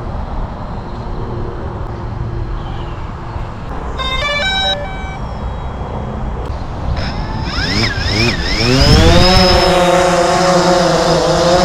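DJI Phantom quadcopter starting up over a low wind rumble. A short run of electronic beeps comes about four seconds in. About three seconds later the motors and propellers spin up with a rising, wavering whine and settle into a steady hum as the drone lifts off and hovers.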